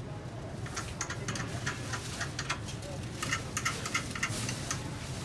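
Irregular metallic clicks and light taps from hands working on a rotary screw compressor's threaded tension rods and motor mount, over a steady low hum.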